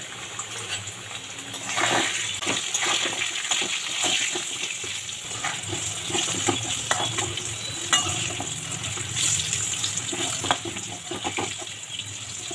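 Potatoes deep-frying in hot oil in a metal kadai, sizzling steadily, while a metal spatula turns them, with scrapes and clinks against the pan throughout.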